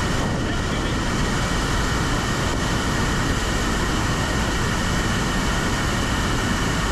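Waterfall pouring into a pool inside a rock cavern: a steady, unbroken rush of falling water.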